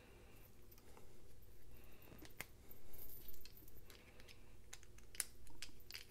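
Light, scattered clicks and taps of small metal folding-knife parts being handled and fitted together, with a screwdriver bit working a small handle screw in the second half.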